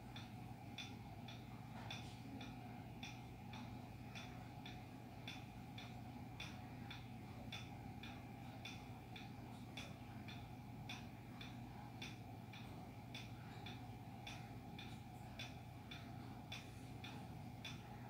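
Harbor Breeze Aristocrat ceiling fan running, with a low steady hum and a light, even ticking of about two ticks a second.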